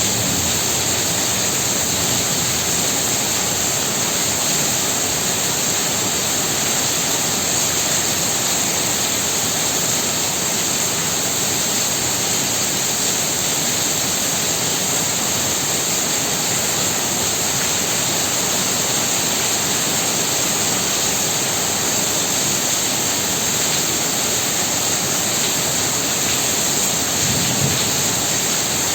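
Heavy rain pouring steadily, a dense even hiss with no letup.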